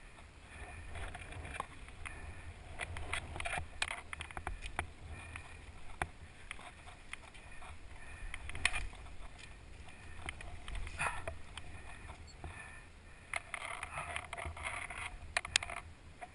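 Low wind rumble on a helmet-camera microphone, with irregular rustling, scraping and sharp knocks as dry dune grass and sand brush against the camera. The rustling is busiest around three to five seconds in and again near the end.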